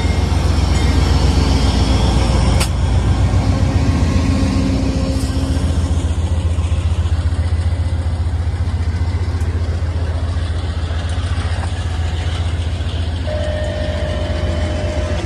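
Amtrak passenger train rolling past at close range: a steady low drone from its GE P42 diesel locomotives under the rumble of stainless-steel passenger cars on the rails. There is a single sharp clack about two and a half seconds in, and a steady tone over the last couple of seconds.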